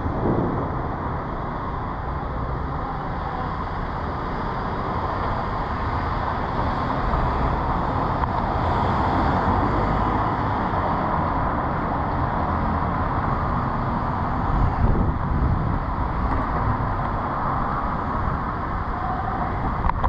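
Steady street traffic noise, vehicles passing on a city street, swelling a little about three-quarters of the way through.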